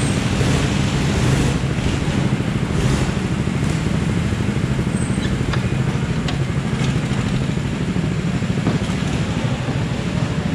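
Rental go-kart engine running steadily at low revs, heard close up from the driver's seat.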